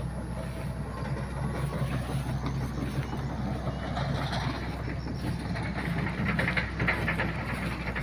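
Hydraulic excavator's diesel engine running under load, a steady low drone, with brief crackling noise about six to seven seconds in.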